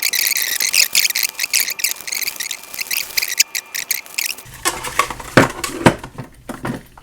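Packaging of a digital deadbolt lock being opened: crinkling and rustling of plastic and cardboard. A little over four seconds in, this gives way to a few knocks and clacks as the lock's parts are taken out and handled.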